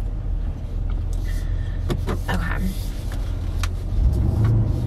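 Road and engine rumble inside a moving car's cabin, growing louder about four seconds in, with a few faint clicks.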